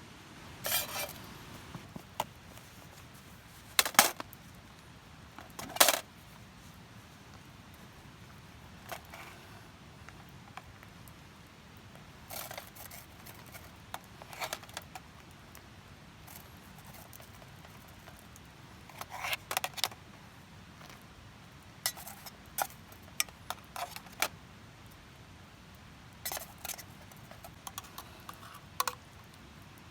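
Intermittent light metallic clinks and clatters of small hard items being handled, in short clusters with pauses between.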